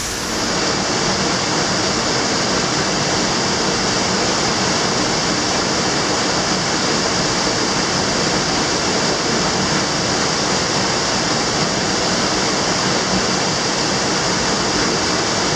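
Waterfall in a rock gorge: a steady, unbroken rush of falling water close by.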